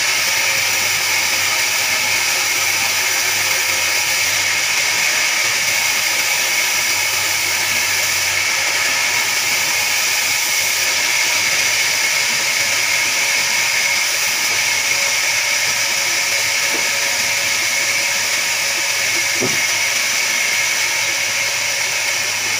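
Large sawmill band saw running steadily, an even hiss with a high whine that holds without change.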